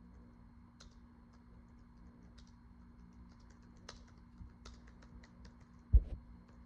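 Faint, irregular clicks and taps over a low steady hum, then one loud, dull thump about six seconds in.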